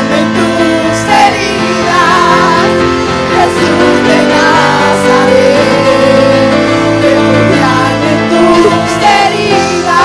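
Live worship music: a choir of women singing into microphones over steady instrumental accompaniment.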